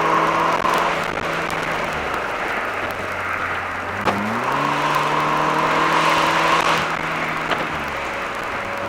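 Mercedes-Benz SLK 230 Kompressor's supercharged four-cylinder engine driving through its five-speed automatic. The revs fall about two seconds in, rise quickly just after four seconds and hold steady, then fall again near the end, over a steady hiss.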